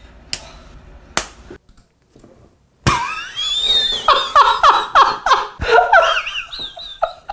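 Two short clicks, then after a brief silence a few seconds of loud, high-pitched laughter in quick breathless pulses.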